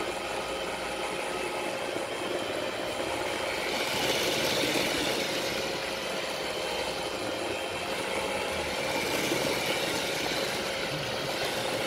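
Roomba robot vacuum running, a steady whir of its suction motor and brushes with a faint steady hum.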